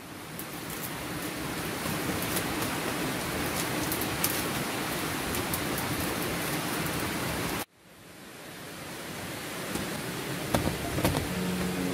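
Wood fire crackling with a steady hiss and scattered sharp pops, burning under a bamboo tube of green bananas cooking. The sound drops out suddenly about 7.5 seconds in and fades back in. Guitar music comes in at the very end.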